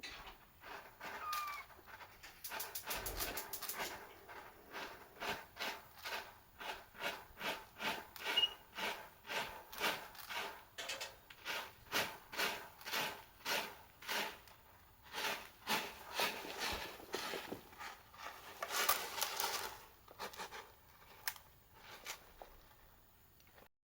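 A kitten breathing hard in regular huffs, about two a second, as it strains on its first toilet, with short rustling near the start and again near the end.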